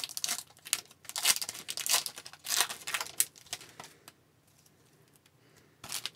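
Foil wrapper of a trading-card pack crinkling and tearing as it is ripped open by hand, in a quick run of crackles over the first three and a half seconds. One more short rustle comes near the end.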